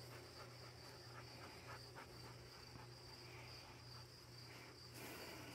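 Near silence, with faint crickets trilling steadily on one high note over a low steady hum.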